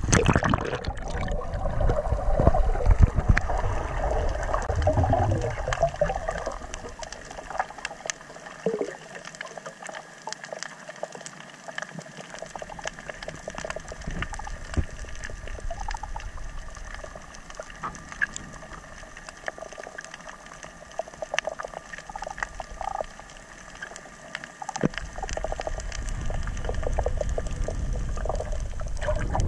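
Water sloshing and splashing around a snorkeler as he ducks under, then muffled underwater sound with many scattered faint clicks and crackles while he is submerged. Loud water noise returns near the end as he comes back toward the surface.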